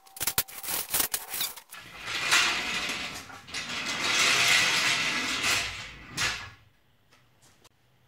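Steel swivel casters on a short tripod stand rolling across a concrete floor: a few sharp knocks as the stand is handled, then a steady rolling noise for about four seconds that dies away about six seconds in.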